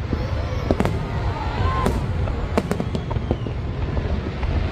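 Aerial fireworks display: shells bursting in a rapid, irregular run of sharp bangs and crackles over a steady low rumble.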